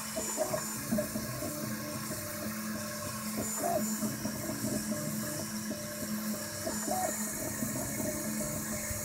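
Ultimaker 2 3D printer at work: its stepper motors whine in short tones that keep changing pitch as the print head moves back and forth, over the steady whir of its cooling fans.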